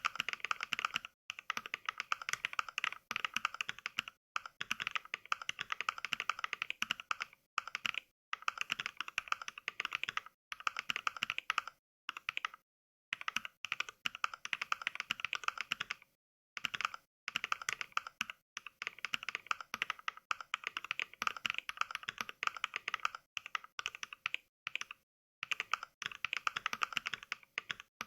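Fast touch-typing heard as simulated mechanical-keyboard clicks from the Mechvibes NK Cream sound pack, which imitates NovelKeys Cream switches. Each keystroke gives a short clack, coming in quick runs broken by many brief dead-silent pauses.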